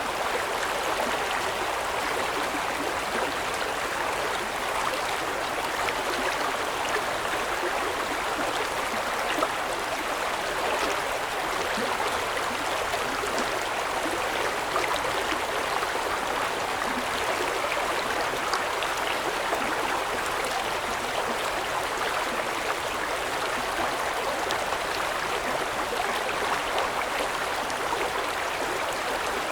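River stream flowing: a steady rushing and babbling of water over the streambed, with small splashes and trickles flickering through it.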